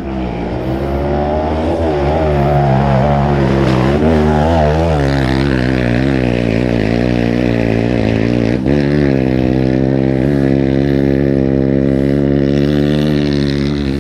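Off-road motorcycle engine revving up and down under a working throttle, then holding a steady pitch, with a brief dip partway through.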